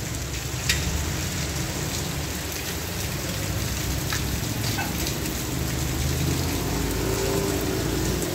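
Steady rain falling, with a few sharper drop ticks and a low rumble underneath.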